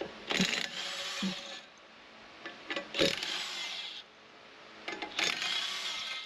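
DeWalt cordless impact wrench hammering out bolts on the Cummins 4BT's flywheel housing in three short runs of about a second each, with brief pauses between them as it moves from bolt to bolt.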